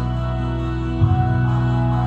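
Music with held notes, the bass moving to a new note about a second in.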